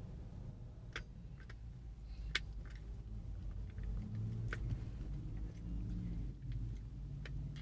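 Steady low rumble of a car driving, heard from inside the cabin, with a few sharp clicks scattered through it.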